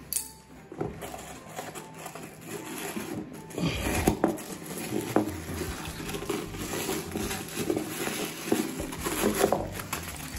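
A pair of leather loafers being handled on a wooden floor: scattered light knocks and scuffs as a shoe is moved and set down.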